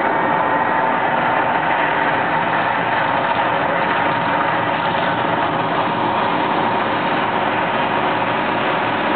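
Steady, loud rushing noise from the Mirage volcano attraction's eruption: its water jets and gas fire effects running.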